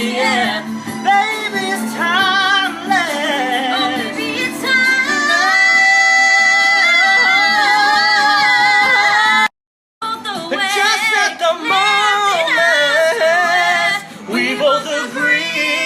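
A woman singing a ballad with vibrato over backing music, holding one long note in the middle. The sound drops out abruptly for about half a second near the end of that note.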